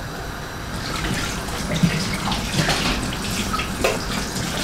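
Kitchen tap running into a stainless steel sink while dishes are washed under it, with a few light knocks of the dishes against one another.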